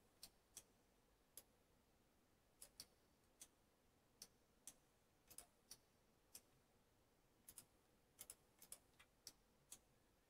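Faint, sharp clicks of a computer mouse at irregular intervals, about twenty in all, some coming in quick pairs, as vertices are selected and dragged.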